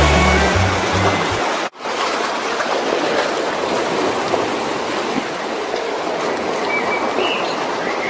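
Background music with a heavy bass cuts off suddenly less than two seconds in, followed by a steady rushing wash of sea water against the rocky shore.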